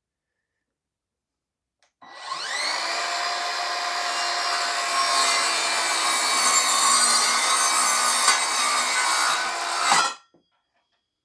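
Evolution R185SMS 18-volt cordless sliding mitre saw starting about two seconds in, its motor whine rising as the soft start spins the blade up, then running and sawing through wood for about eight seconds. The sound cuts off abruptly near the end as the blade brake stops the blade.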